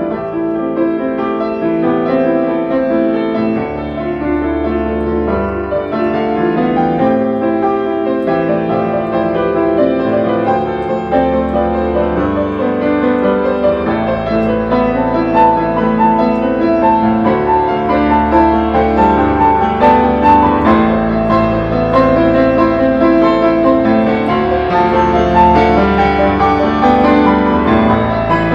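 Instrumental background music: a keyboard playing held chords, with a brighter, higher line of notes coming in about halfway through.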